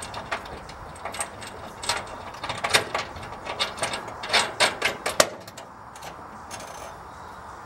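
An irregular run of sharp metallic clicks and clanks for about five seconds, then they die away: work on the mounting hardware of a steel wheel chock being bolted down to an aluminum trailer floor.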